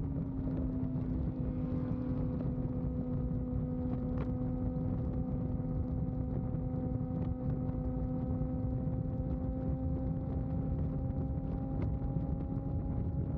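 Sportbike inline-four engine cruising at highway speed, holding one steady note that creeps slightly higher, over a heavy rush of wind on the microphone.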